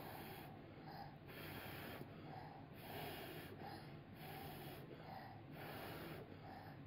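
A toddler blowing on a spoonful of hot, freshly cooked rice to cool it: soft airy puffs about every second and a half, about five in all, with quieter breaths between them.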